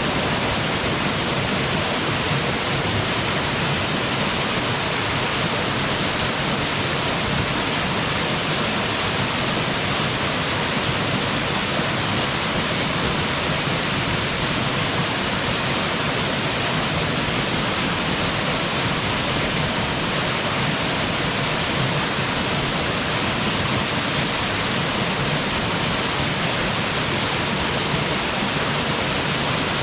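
Waterfall falling onto rocks and pool: a steady, even rush of water.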